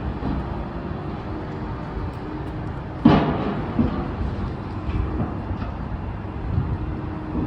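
Traffic on a busy city street: a steady low rumble of vehicles, with a sudden loud burst about three seconds in.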